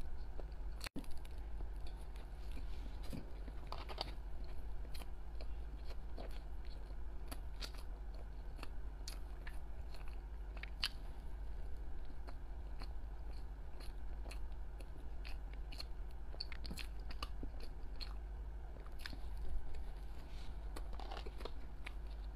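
Biting and chewing a soft bread pastry, with many small mouth clicks and smacks scattered throughout, over a steady low hum.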